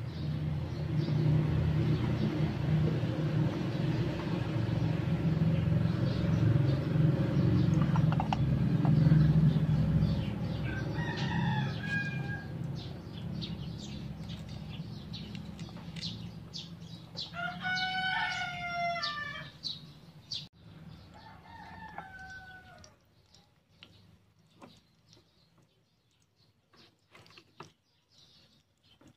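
A rooster crowing three times, the second crow the longest, over oil sizzling in a small frying pan with scattered light pops near the end. A low rumble is the loudest sound through the first half.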